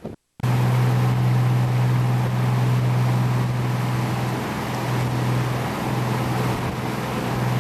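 A boat's engine running steadily, a loud low hum under a rush of wind and water noise, starting abruptly about half a second in.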